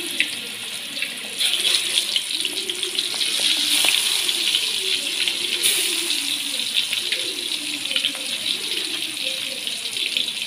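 Marinated Spanish mackerel (tenggiri) steaks sizzling and crackling in hot oil in an aluminium wok as more pieces go in; the sizzle grows louder about a second and a half in and is strongest about four seconds in.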